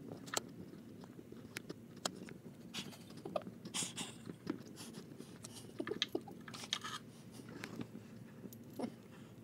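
Hands handling metal engine parts while taking off a Subaru EJ25's timing belt tensioner: scattered light clicks and knocks with a few brief scraping rustles.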